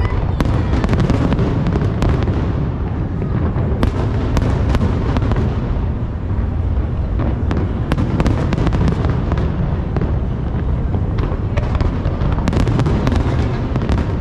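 Large aerial fireworks display: shells going off one after another in a continuous low rumble, with many sharp cracks and pops layered over it.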